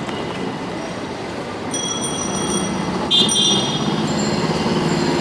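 Steady rumble of heavy vehicle noise, with a thin high-pitched whine about two seconds in and a louder, short high-pitched blare a second later.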